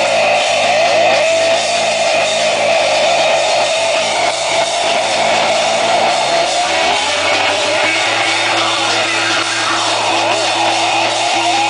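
Punk rock band playing live: distorted electric guitars, bass guitar and drum kit, loud and continuous. About six seconds in, the low notes slide and then settle on a held note.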